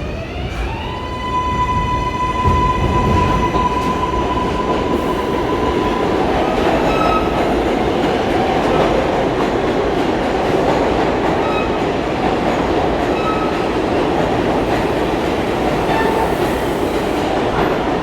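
New York City subway 7 train (R188 cars) pulling out and gathering speed. Its traction motors whine up in pitch within the first second and then hold a steady high tone for several seconds, over a rumble of wheels on rail that carries on, with a few faint short squeals later.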